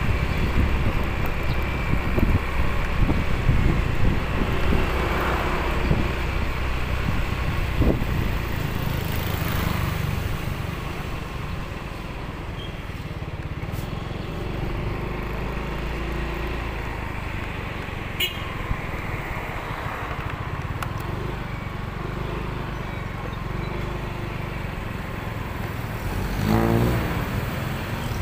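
Motorcycle engine running steadily with road and wind rumble while riding through city traffic. Near the end an engine briefly gets louder and rises in pitch.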